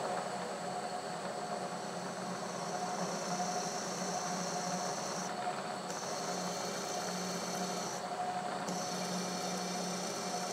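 A letter-Q twist drill in a machine spindle cutting into a round metal bar, running steadily with a thin high cutting hiss. The hiss breaks off briefly twice, about halfway through and again about eight seconds in.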